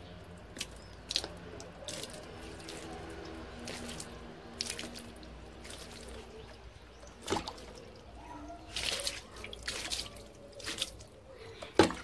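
Water being poured onto potted plants, splashing and dripping onto soil and pebbles in irregular bursts, with a sharper splash near the end.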